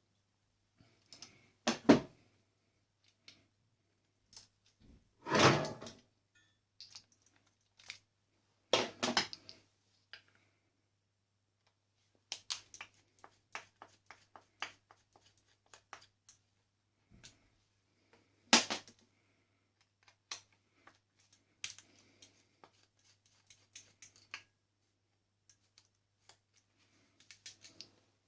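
Irregular clicks, knocks and rattles of plastic and metal parts being handled as a coffee maker is dismantled by hand, with a few longer scraping rattles in the first ten seconds and a single sharper knock past the middle.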